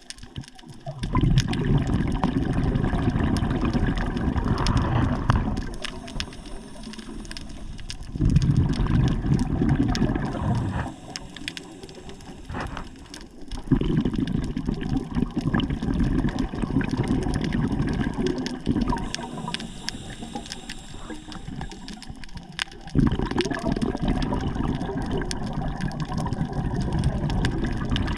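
Water rushing and gurgling in surges lasting several seconds each, with quieter gaps between them.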